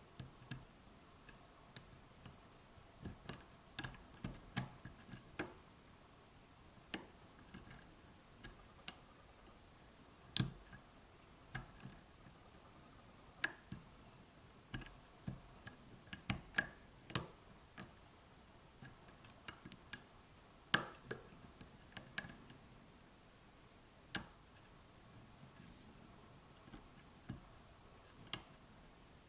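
Faint, irregular clicks and ticks of a lock pick working the pin stack of an Abus 83/45 padlock, with a few louder snaps as pins set or drop.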